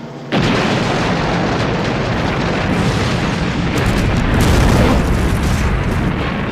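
Explosion sound effect: a sudden loud blast about a third of a second in, running on as a long, deep rumbling roar.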